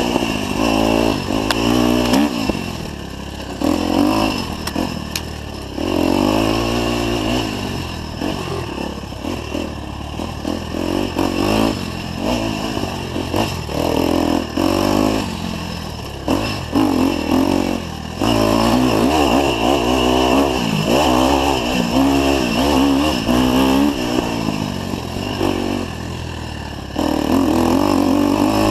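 Dirt bike engine revving up and down over and over as the throttle is opened and closed on a rough trail, with rattles and knocks from the bike over bumps. It is held at higher revs for a long stretch past the middle, drops back briefly near the end, then picks up again.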